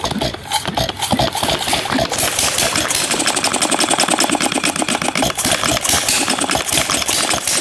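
Hand-built, air-cooled, inverted vertical hit-and-miss gas engine running with a rapid, even train of beats, a little uneven for the first couple of seconds before it settles.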